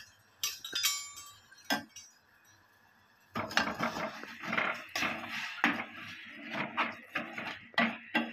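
Metal slotted spoon stirring lumps of jaggery in water in a metal saucepan: a few light clinks, then from about three seconds in a quick, steady clatter of knocks and scrapes against the pan. The jaggery is being stirred to melt into syrup.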